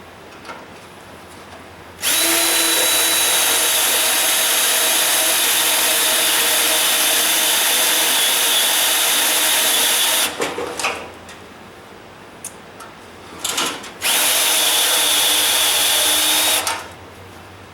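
Electric drill on low speed driving a Rotabroach annular cutter through the spot welds of a car's steel core support, with a steady high whine. It runs twice, about eight seconds and then about three, with a few clicks and knocks between the cuts.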